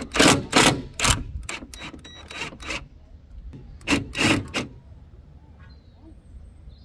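Irregular metal knocks and scrapes as a car's loosened suspension strut and arm are handled and worked free, a dozen or so separate clunks over the first four and a half seconds, then quieter.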